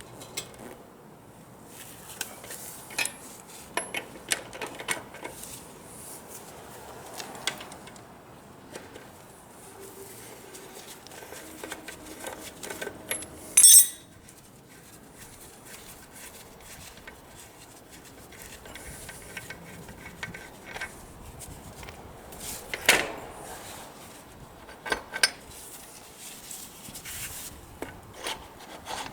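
Hand tools working on motorcycle parts: scattered metallic clicks, taps and clinks of a socket and spanners on metal. A sharp ringing metal clank comes about halfway through, and a heavier knock a little later.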